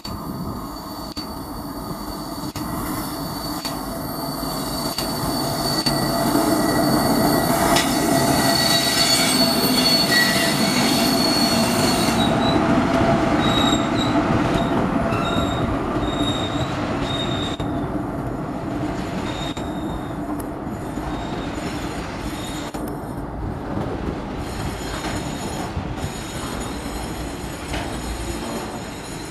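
A WAG-9 electric locomotive hauling a long rake of open freight wagons past on a curve: a steady rumble of wheels on rail with high squealing from the wheels. It is loudest as the locomotive goes by, from about six to fourteen seconds in, then settles to a lower, even rumble as the wagons roll past.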